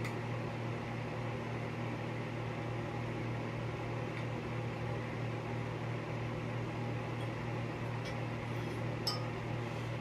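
Steady low mechanical hum of a running appliance, with a few faint light clicks near the end.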